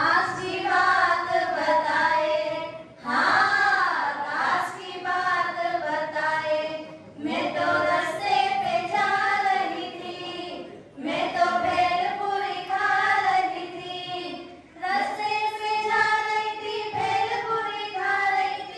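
A woman singing a Hindi devotional song into a microphone, in sung phrases of about four seconds each with short breaks between them.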